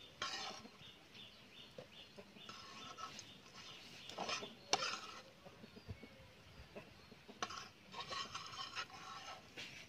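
A metal spatula scrapes and taps on a flat iron frying pan as fried slices are lifted out, with a couple of sharp clicks. Intermittent bird calls, like a hen clucking, sound in short bursts in the background.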